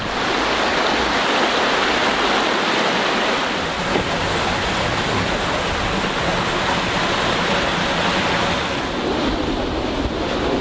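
Steady, loud rushing noise with no pitch or rhythm, starting abruptly.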